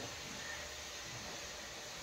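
Steady low hiss from an aluminium steamer pot on the stove.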